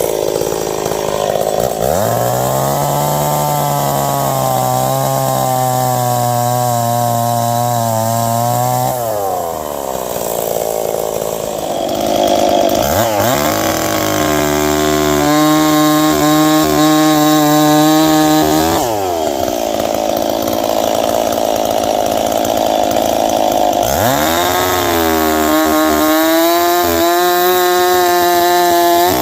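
Ported Stihl 026 chainsaw bucking ash logs: it revs up to full throttle three times, holding each cut for several seconds, and drops back to idle between cuts.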